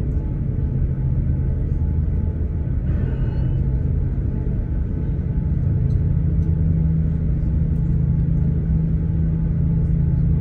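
Cabin rumble of an Airbus A350-900 with its Rolls-Royce Trent XWB engines running, heard from a window seat over the wing: a steady low drone whose hum grows a little stronger about six seconds in.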